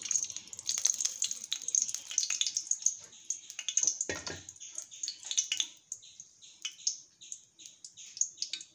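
Cooking oil poured into a hot metal kadai, sizzling with a dense crackle that thins after about five seconds to scattered pops. A brief dull knock comes about four seconds in.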